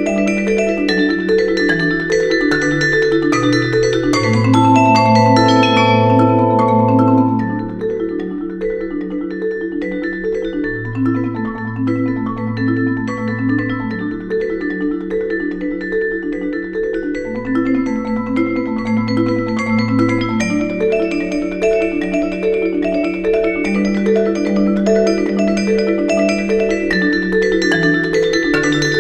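Vibraphone and marimba duet playing fast, flowing broken chords over repeated low marimba notes. The playing is somewhat louder for the first seven seconds or so, then eases back.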